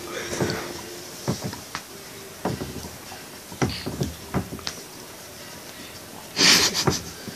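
Close-up handling clicks and breathing noises from a phone held right at a child's face, with one loud breathy gust into the microphone about six and a half seconds in.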